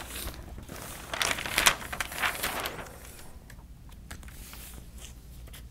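Large sheets of flip-chart paper rustling and crinkling as they are turned over on an easel pad, in several bursts during the first three seconds, then quieter.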